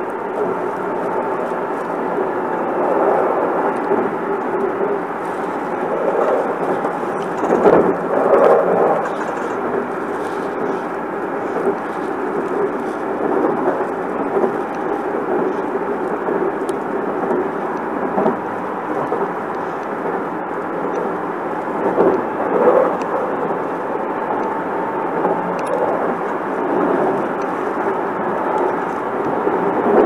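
Hankyu Kobe Line commuter train running, heard from inside the car: a steady rumble of wheels and motors that swells louder about eight seconds in and again a little past twenty seconds.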